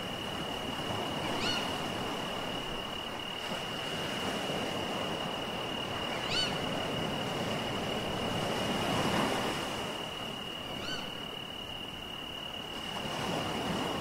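Sea waves washing in, the surf swelling and easing over several seconds. A steady high tone runs under it, and a short chirping call comes three times, about five seconds apart.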